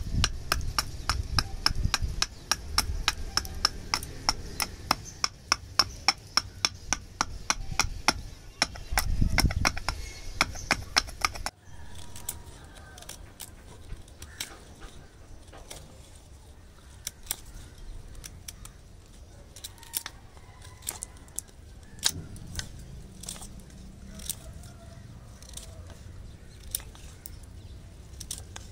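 Knife blade striking into dry Lapsi wood on a chopping stump in quick, even strokes, about four a second. After an abrupt change about a third of the way in, slower, irregular knife cuts shave the spoon blank.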